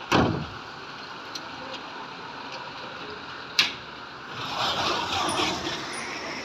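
Steady hiss of hail and rain falling on the street, broken by two sharp knocks, one at the very start and one past the middle. Near the end a car drives past through the wet, hail-covered road with a rising, then fading swish of tyres.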